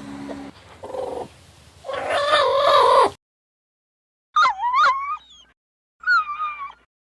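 A cat meowing: one long, drawn-out meow, then after a sudden silence two shorter, higher meows that rise and fall in pitch.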